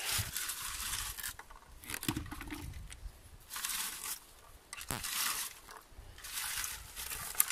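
A red plastic blueberry picker (berry rake) combing through low blueberry bushes: several separate rustling, scraping sweeps through leaves and twigs, each under a second long.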